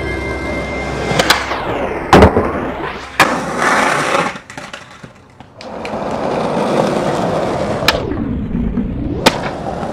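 Skateboard wheels rolling on pavement, with five sharp clacks of the board popping, hitting and landing, the rolling noise swelling as the board passes close by.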